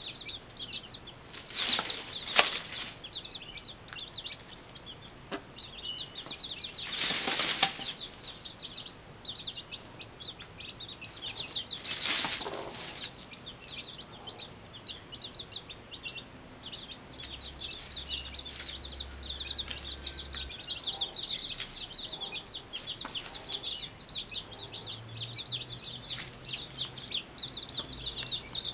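Newborn chicks peeping without pause, a chorus of quick, high cheeps. Three loud rustling bursts stand out at about two, seven and twelve seconds in.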